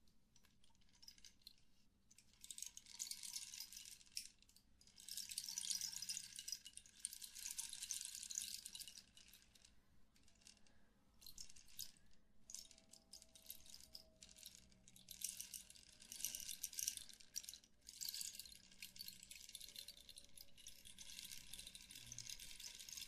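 Toy putty (slime) being squeezed and worked close to the microphone: soft wet crackling and popping in stretches of a few seconds, with short quiet pauses between them.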